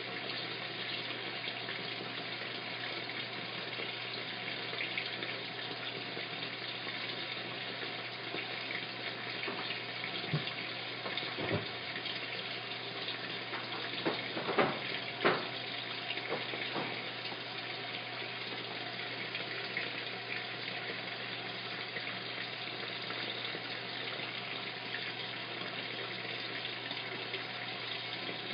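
Washing machine filling with water: a steady rush of water flowing into the drum, with a few light knocks about halfway through.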